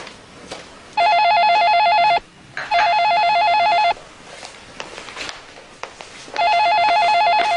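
Telephone ringing with a warbling electronic ring: two rings close together, a pause, then the next ring starting near the end, the call that is then answered.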